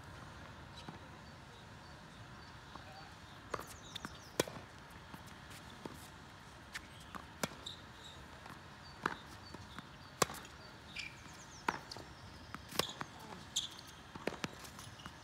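A tennis rally: the ball struck by rackets and bouncing on a hard court, sharp knocks about once a second from a few seconds in. Birds chirp faintly in the background.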